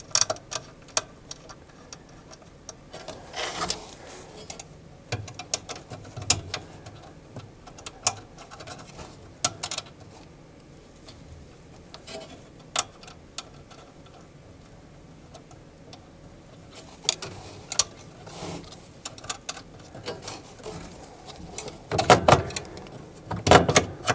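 Irregular small metallic clicks and ticks as a screw with a wavy washer is started by hand and turned with a 1/8-inch Allen wrench into a drive motor's mounting plate, with a few louder knocks near the end.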